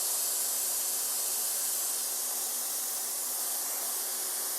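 DeWALT 2100 PSI electric pressure washer spraying, a steady high-pitched hiss of water jet with a faint steady hum under it.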